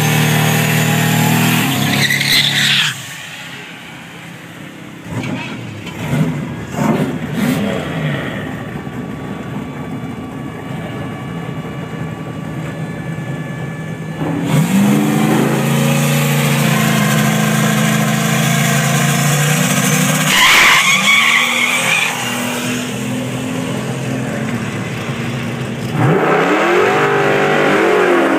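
Turbocharged Fox-body Ford Mustang drag car: a high-revving burnout with squealing tires for the first few seconds, then a quieter stretch with a few sharp throttle blips. About halfway through the engine comes in loud and held for a hard launch down the strip, breaking briefly and rising again partway through the run.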